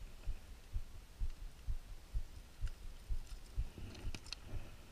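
Low, muffled thumps at a steady pace of about two a second, with a few sharp clicks shortly before the end.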